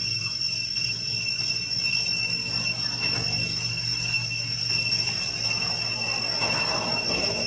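Steady, high-pitched buzzing of insects in the forest canopy over a low hum. A fainter rustling texture swells in the middle of the stretch.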